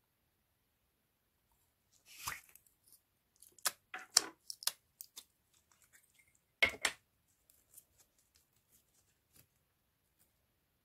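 Slime being handled: a run of short, sharp sticky clicks and crackles starting about two seconds in, loudest for a few seconds, then thinning out to a few faint ticks.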